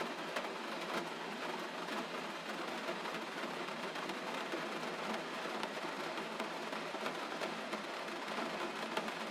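Steady gentle rain falling, an even patter of many small drops.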